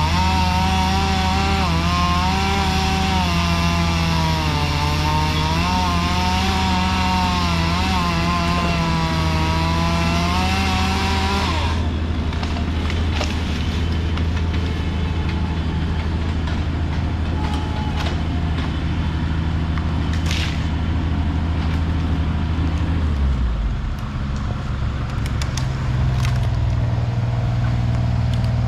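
Chainsaw running under load, its pitch wavering as it cuts through a log, over the steady hum of another engine idling. About twelve seconds in the saw stops and the idling engine carries on, changing pitch near the end.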